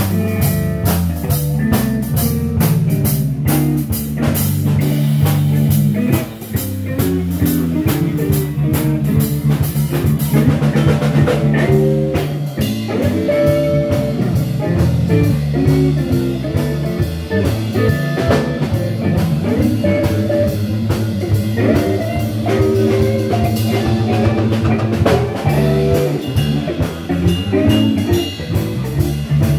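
Blues trio playing live without singing: electric guitar, electric bass and drum kit. The drums are busiest in the first third, then melodic guitar lines come to the fore over the bass and drums.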